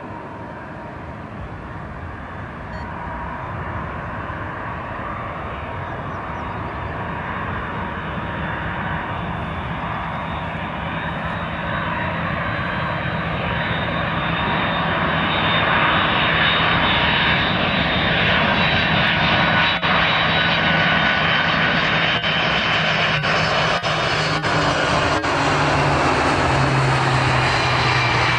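Airbus A300 freighter's twin jet engines on final approach, growing steadily louder as it closes in. It is a broad rush with steady whining tones over it, and near the end the whine falls in pitch as the jet passes.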